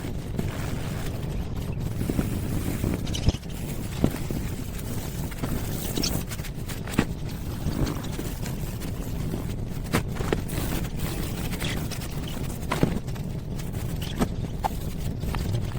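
Scattered clicks and knocks of hard parts being handled, over a steady low rumble.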